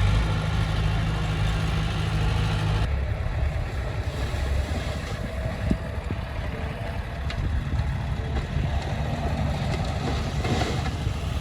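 Diesel engine of heavy construction machinery running steadily, its sound changing abruptly about three seconds in, with a few sharp knocks later on.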